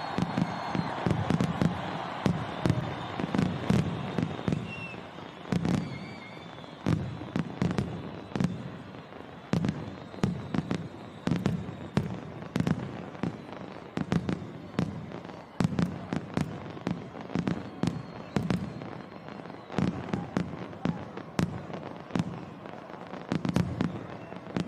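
Fireworks display: a steady run of booming bursts and sharp crackling reports, several a second, with a few faint whistles near the start.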